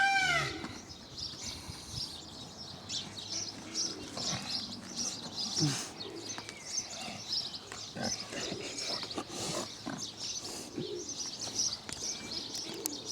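Small birds chirping throughout, with a short rising-and-falling squeal right at the start and a few soft low grunts from the pig.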